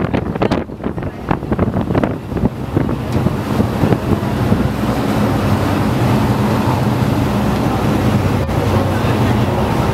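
Wind buffeting the microphone on a moving boat, gusty at first, over the boat's engine humming steadily and water rushing past the hull.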